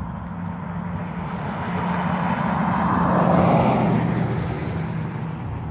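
A vehicle passing by, swelling to a peak about three and a half seconds in and then fading, over a steady low engine hum.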